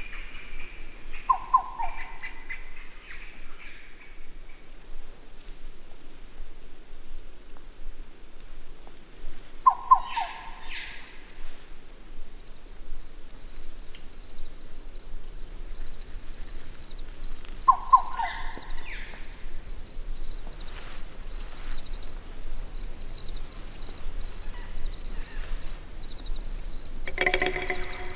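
Night-time forest chorus of insects: a steady, high-pitched pulsing trill, joined about ten seconds in by a second, slightly lower pulsing trill. Three times, about eight seconds apart, a short, slightly falling animal call sounds over it.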